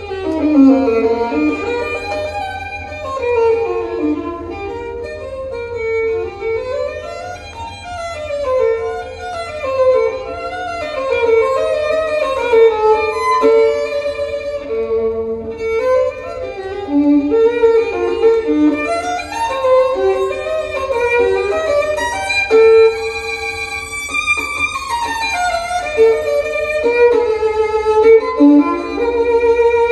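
Violin music played back over a hi-fi system, a Kronos Pro turntable driving large horn loudspeakers, heard in the listening room. The violin plays quick runs that climb and fall.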